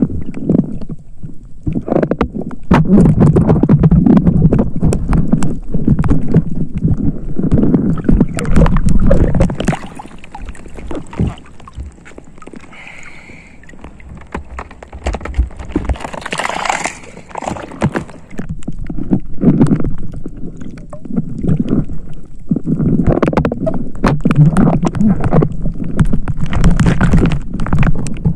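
Sea water sloshing and gurgling in irregular surges as a spearfisher moves through the water, with scattered clicks and knocks. It quietens for a few seconds around the middle, then picks up again with a brief hissing rush.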